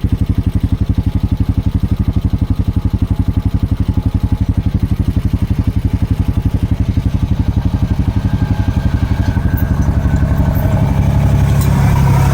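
ATV engine towing a log on a log arch, running at low revs with an even pulsing beat. About nine seconds in it revs up and runs harder under the load.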